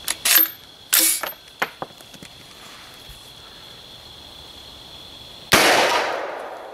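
A few sharp metal clacks as the launcher's action is worked and charged. About five and a half seconds in comes a single loud shot: the blank-fired X-Products Can Cannon golf-ball adapter launching a golf ball. The report trails off over about a second.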